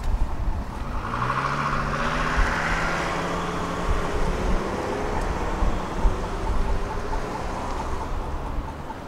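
A tram pulling away, its electric motors whining and rising in pitch over a few seconds, then fading over a low rumble.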